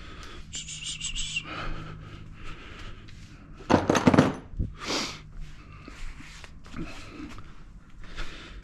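Handling noise at a workbench: parts being picked up, rubbed and set down, with a louder rough scrape about four seconds in and another a second later.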